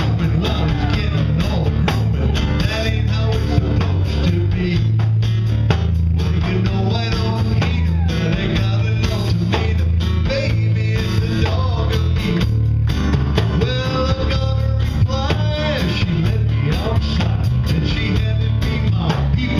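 Live band playing a song: a man singing over strummed acoustic guitar, electric bass and electric guitar.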